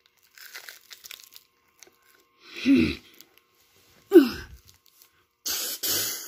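Plastic snack-bar wrapper crinkling as a rice cereal treat is handled in it, with two short wordless vocal sounds falling in pitch from the person holding it, and a louder rustle near the end.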